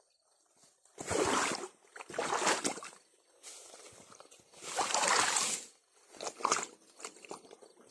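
Water sloshing and splashing in about five separate bursts as an eel trap is hauled out of shallow water and shaken, water running off it between the splashes.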